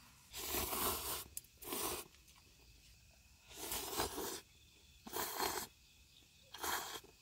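A person slurping noodles from chopsticks: five separate slurps, each under a second long.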